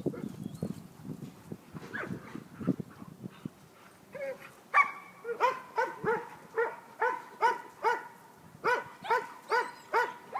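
A dog barking over and over in a steady rhythm, about three barks a second, starting about halfway in, with a brief pause before it resumes. Faint, scattered sounds come before the barking.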